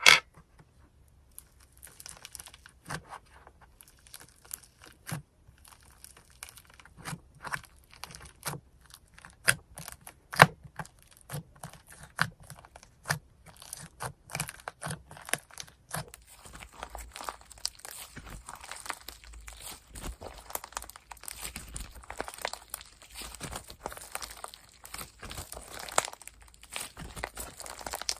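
Slime being squished and kneaded by hand, giving irregular sharp crackles and pops that become a dense, continuous crackling about halfway through.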